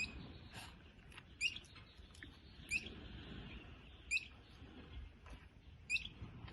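A small animal calling from a distance: the same short, rising chirp repeats about every one and a half seconds, five times. It is the same call that has gone on all night and all morning.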